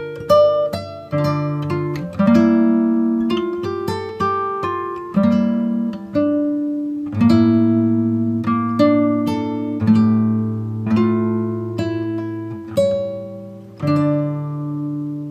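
Background instrumental music of plucked strings, notes and chords picked one after another, each ringing out and fading.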